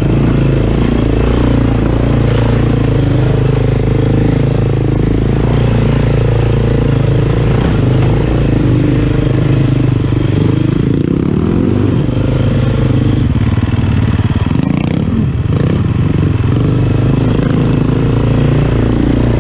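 KTM dirt bike engine running under load on a rocky single-track climb, the revs rising and falling with the throttle.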